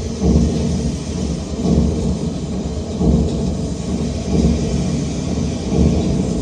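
Loud, low rumbling noise that swells in a regular rhythm, about once every second and a half.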